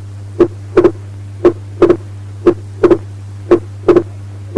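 Heart sounds of an atrial septal defect, at about one beat a second: each single first heart sound is followed by a second heart sound split into two close clicks, the wide, fixed splitting of S2. A steady low hum runs underneath.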